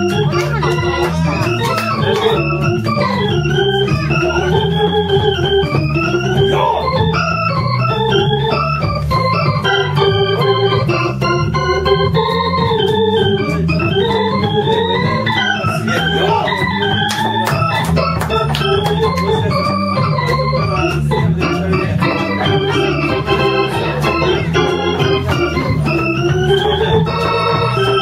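Live jazz: a keyboard with an organ-like sound plays a busy, winding melody over steady low bass notes, with faint ticking on top.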